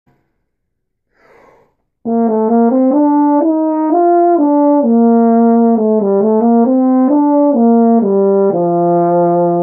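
Euphonium played solo: after a faint breath, a quick melodic run of about twenty connected notes that ends on a long held low note.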